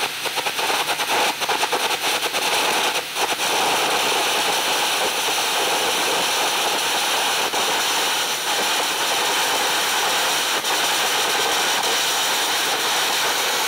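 Carbon arc gouging torch at 300 amps cutting into steel plate: sharp crackling and popping from the arc for the first three seconds or so, then a steady loud hiss as the arc and its compressed-air jet blow molten metal out of the groove. This is back gouging a weld joint to remove a line of incomplete fusion.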